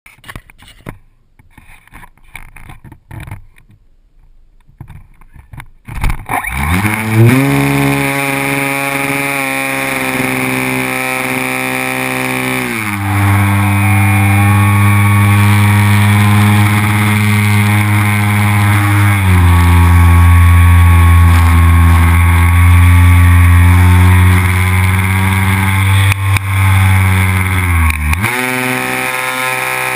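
The engine of a propeller-driven RC model aerobatic plane, heard from a camera mounted on the plane. After a few seconds of faint handling noise it starts up, rises in pitch and then runs steadily and loud, with its pitch and loudness shifting as the throttle changes about halfway through and again near the end.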